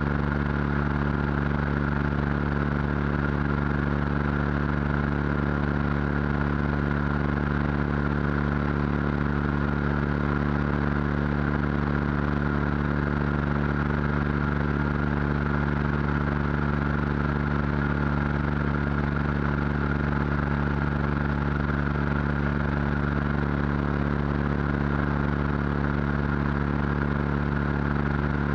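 Single-engine light aircraft's piston engine and propeller droning steadily in cruise flight, with wind rushing past a camera mounted under the wing.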